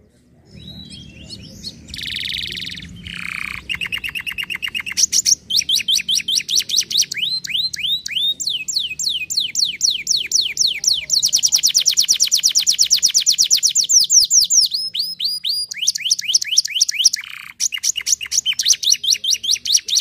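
Domestic canary singing: rapid trills of quickly repeated chirps, switching to a new phrase every second or two, with one long fast trill running for several seconds a little past the middle.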